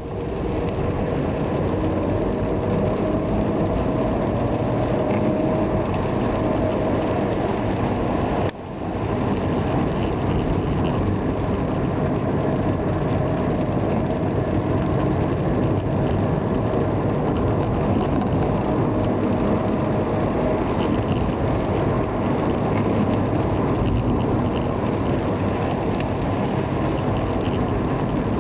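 A car driving on rain-wet roads: steady engine and tyre noise, which dips briefly about eight and a half seconds in.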